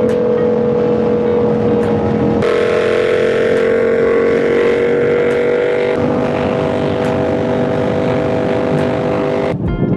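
Motorcycle engine running at a steady cruise while riding, its pitch creeping slowly upward, with rushing wind noise joining about two and a half seconds in. It cuts off suddenly near the end.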